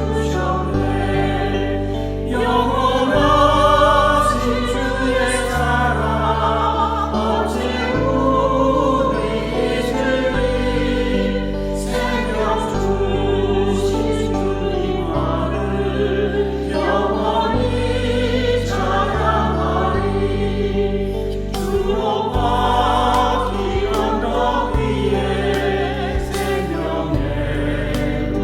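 Church choir singing a Korean sacred anthem in several parts. Long held bass notes change every second or two beneath the voices.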